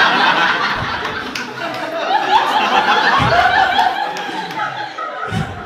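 Audience laughing: many people laughing together, starting at once and tailing off near the end.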